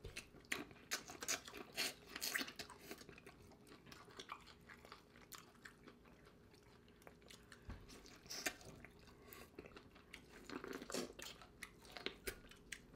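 Close-up eating sounds of a saucy vegan boil: chewing and biting into corn on the cob and sausage, with small crunches. Irregular and busiest in the first few seconds and again near the end, sparser in the middle.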